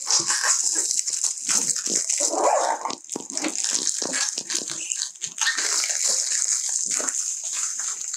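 Thin clear plastic protective wrap crinkling and rustling as it is pulled off and crumpled in the hands, with many irregular small crackles.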